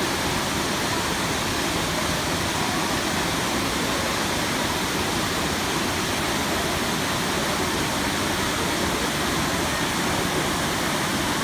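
Waterfall: the constant, even noise of water pouring down Elephant Falls, with no breaks or changes.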